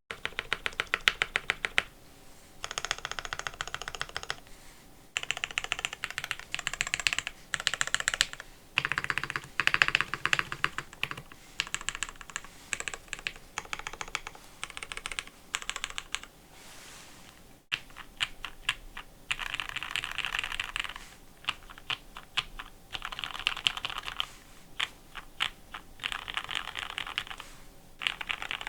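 Geon Frog mechanical keyboard with lubed Hyperglide Black linear switches on an aluminium flex plate with foam, typed on in bursts of fast key presses separated by short pauses, with a longer lull about two-thirds of the way through.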